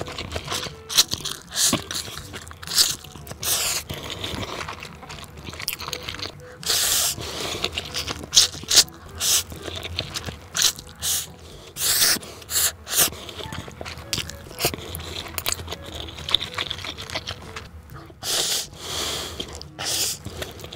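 A person chewing and biting food close to the microphone, in irregular loud bursts. Some bursts are brief and a few last nearly a second.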